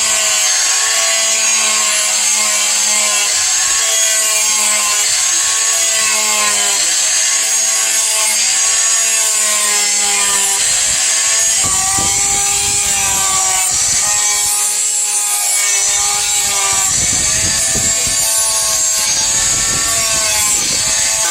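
Electric grinder grinding a spring-steel knife blade: a steady motor whine over a continuous grinding hiss, the whine dipping in pitch and recovering several times as the steel is pressed harder against the wheel.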